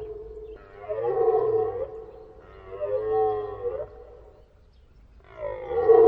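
Red deer stag roaring in the rut: deep, moaning calls, two in a row a second or so apart, then a louder third beginning near the end.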